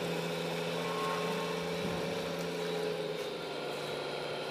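Radio-controlled heavy truck's engine sound, a steady low hum with overtones, easing slightly about three seconds in.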